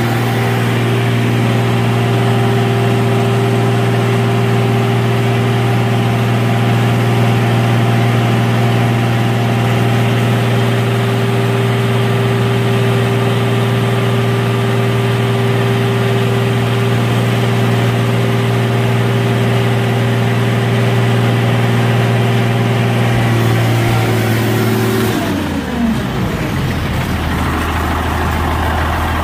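Diesel engine of an RM Johnson E-Z car crusher held at high revs while it drives the hydraulics to shut the lid, running steadily, then slowing back to idle about 25 seconds in.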